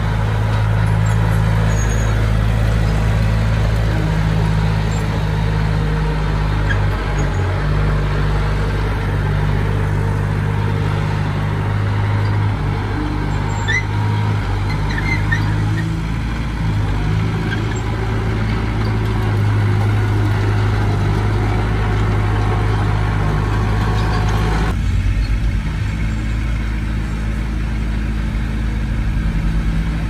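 Heavy diesel engine of earthmoving machinery running steadily with a deep, even hum. About 25 seconds in, the higher part of the sound drops away abruptly, leaving mostly the low engine drone.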